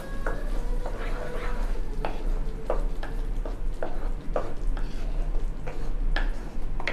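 A wooden spatula stirring thick tomato-onion gravy in a nonstick pan, in a series of short scraping strokes about one and a half times a second.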